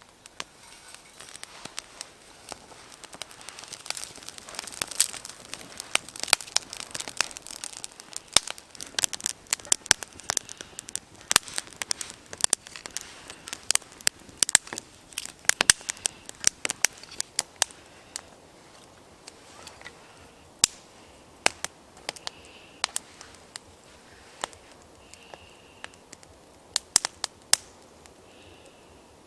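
Small wood fire crackling and popping, with rapid sharp pops through the first half that thin out to scattered pops later.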